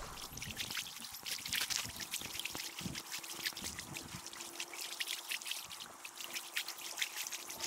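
Small waves lapping and trickling against a gravel lake shore, a constant light patter of little splashes. A faint steady hum joins underneath about three seconds in.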